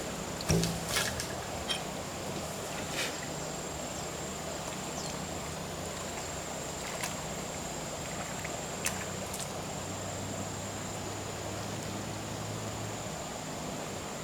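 Steady high-pitched insect drone over a low, steady mechanical hum, with a few sharp clicks and knocks scattered through.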